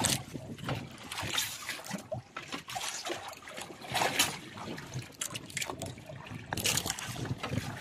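Seawater splashing and dribbling as a freshly caught squid is hauled in on a hand line and dropped into a bucket of water, with irregular splashes and the loudest about four seconds in.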